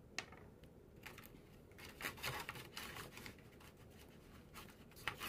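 Faint handling of small gel polish bottles: a sharp click just after the start, then bouts of scratchy rustling and scraping, with another brief burst near the end.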